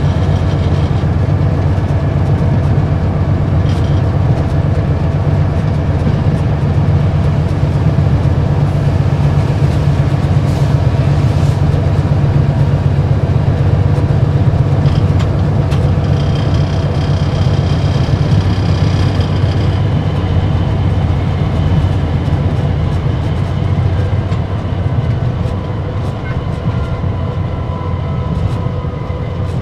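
GE CC206 diesel-electric locomotive heard from inside its cab while hauling a train: a steady low diesel engine drone mixed with running and rail noise, easing slightly near the end.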